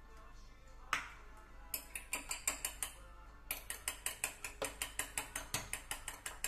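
Rapid run of sharp clicks, about six a second, from a metal fork tapping against an egg's shell. There is one click about a second in, then two runs, the second longer.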